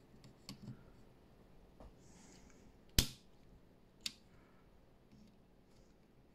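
A single sharp snap about three seconds in, among a few faint clicks: the spark of the open power supply's electrolytic capacitor being shorted to discharge it.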